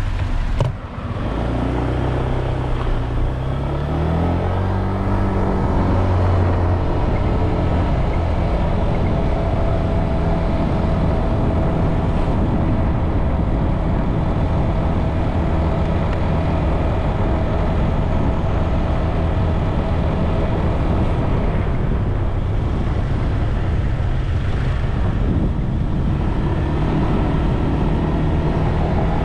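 Motorbike engine pulling away, its note rising over the first few seconds, then running steadily with wind and road noise while riding.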